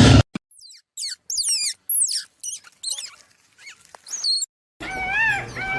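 Mouse squeaking: a string of short, high-pitched squeaks, each falling in pitch, separated by brief silences. Near the end a cat starts meowing.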